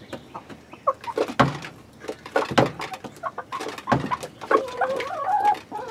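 Backyard laying hens clucking, short low clucks among a run of sharp taps from beaks pecking, with a longer wavering cluck near the end.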